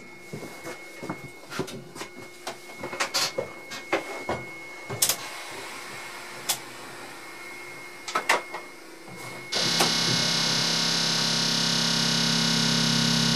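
Inside the cab of a class 362 electric locomotive standing still: scattered clicks and knocks from controls and switches being worked. Then, near the end, the locomotive's auxiliary machinery starts suddenly with a loud, steady whirring hum.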